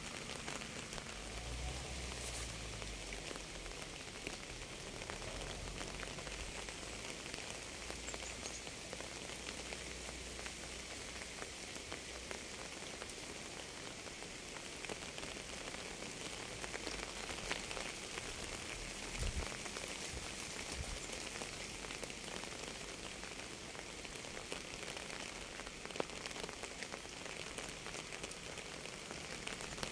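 Steady rain falling on a surface, a continuous hiss of many small drops with scattered louder drip ticks.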